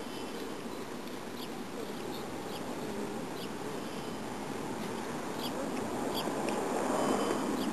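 Outdoor ambience: short high bird chirps repeating every half second to a second over a steady background rush, which swells a little near the end.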